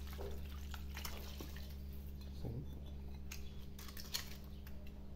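Liquid marinade pouring from a glass bowl onto raw quails in a plastic tub, with soft wet splashes and drips, followed by scattered small wet clicks as a hand works the garlic and marinade over the meat.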